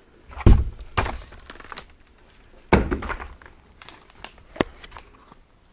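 Clunks and knocks of a shrink-wrapped cardboard tray of glass jars being handled and shifted, three heavy thuds followed by a few lighter taps.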